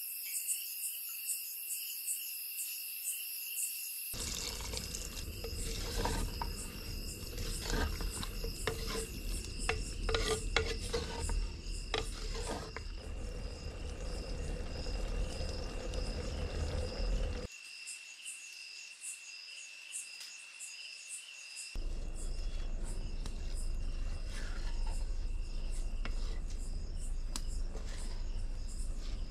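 Crickets chirping steadily in rapid pulses, over scattered clicks and knocks of utensils on a clay cooking pot on a wood fire. A low, steady noise underneath cuts out a little past halfway and returns a few seconds later.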